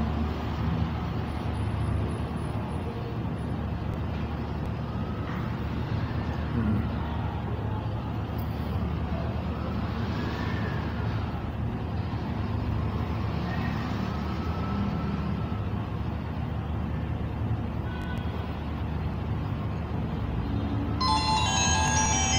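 Steady low rumble of background noise, with a short burst of high tones near the end.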